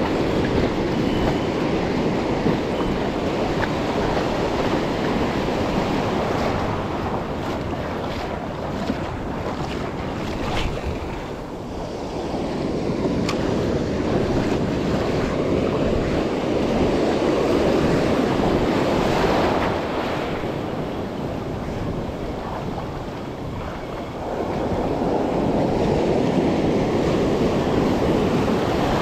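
Ocean surf washing in and out around the wader, with wind buffeting the microphone. The wash swells and eases as waves run in, loudest around the middle and again near the end.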